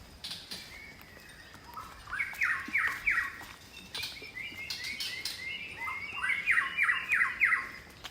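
A songbird singing in two runs of quick, repeated down-slurred notes. The second run is longer and grows louder toward its end.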